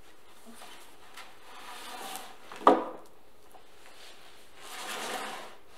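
Books being handled and slid against each other and a surface, with one sharp knock a little under three seconds in.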